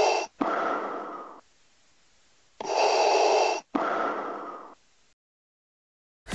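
Scuba diver breathing through an open-circuit regulator: the end of a hissing inhale through the demand valve, then an exhale, followed by a second full inhale and exhale. Quiet for the last second and a half.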